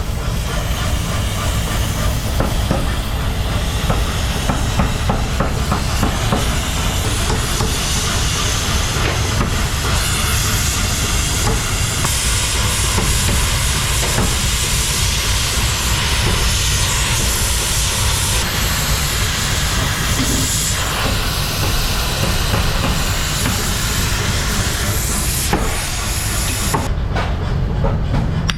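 Loud, steady workshop machinery noise: a deep rumble with a hiss over it, the high hiss dropping away near the end.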